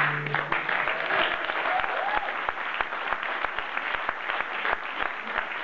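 Theatre audience applauding, a dense clatter of many hands clapping. The band's last held chord stops just as the applause begins.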